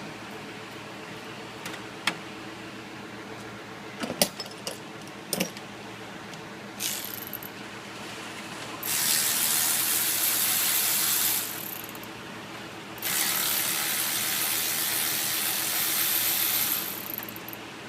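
A few sharp metallic tool clicks, then two long, steady, loud hissing sprays, the second one longer, during work on a 6.0 Powerstroke diesel's fuel rail.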